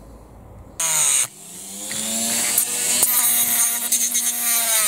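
Dremel rotary tool cutting through the metal axle of a toy tractor. It gives a short burst about a second in, then starts again, its whine rising as it spins up. It then runs steadily at high speed as it cuts into the metal.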